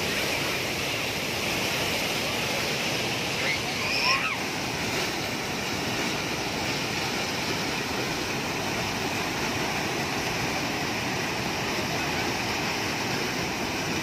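Panimur Falls on the Kopili River: water pouring over sandstone ledges and cascades with a steady rushing. A brief high-pitched call cuts through about four seconds in.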